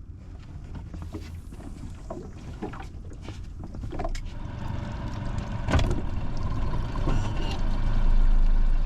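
Honda 40 four-stroke outboard running low at idle under scattered sharp knocks, the sound growing louder over the last few seconds.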